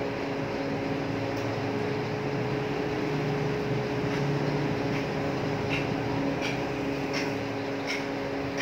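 Steady background hum with a few held tones, like a fan or machine running near the microphone. Faint clicks come every second or so, from the mouse and keyboard being worked at the computer.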